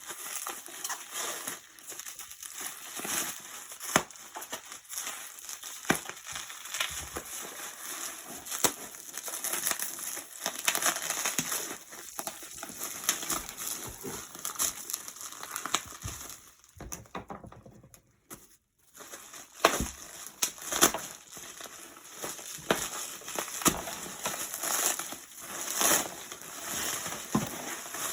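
Gift packaging being unwrapped: wrapping crinkles and rustles, with short sharp knocks and snaps of handling. It stops briefly for a couple of seconds about two-thirds of the way through, then resumes.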